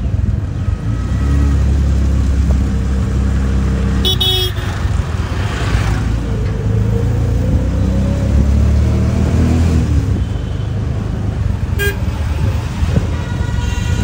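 Road traffic: vehicle engines running with a steady low rumble, and horns tooting briefly about four seconds in and again near twelve seconds, with a longer horn sound near the end.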